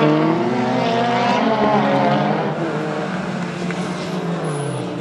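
Hill-climb race car's engine revving hard up the climb, its pitch rising and dropping with gear changes and easing slightly toward the end.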